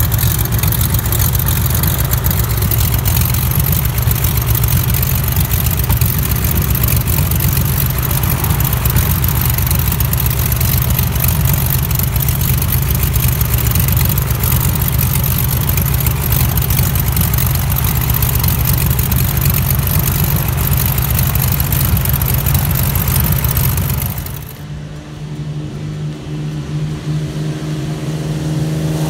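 SX300 kit aircraft's piston engine running close up, with the propeller turning, in a loud steady rumble. About twenty-five seconds in, the sound drops to the same plane heard from farther off, its engine note rising as power comes up for the takeoff run.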